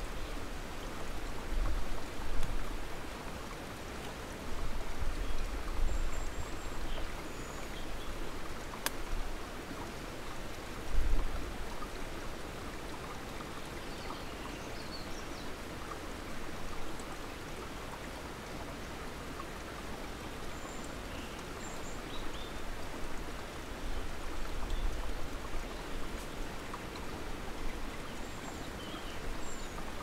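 Steady rushing outdoor background noise, with a few deep low rumbles, the strongest about eleven seconds in, and scattered faint high chirps.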